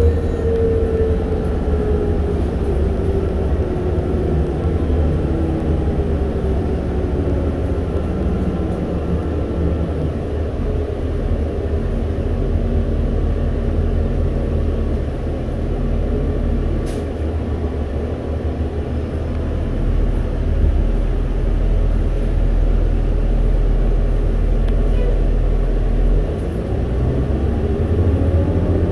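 Interior sound of a CNG-powered New Flyer C40LFR transit bus: a steady engine and drivetrain rumble. A whine falls in pitch as the bus slows over the first several seconds, it settles to a low hum while stopped, and a rising whine near the end marks it pulling away. A single brief click is heard about halfway through.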